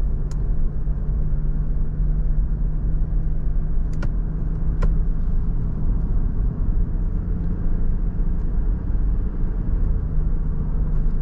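Lexus LX500d on the move, its engine and tyres making a steady low rumble, with a few faint clicks.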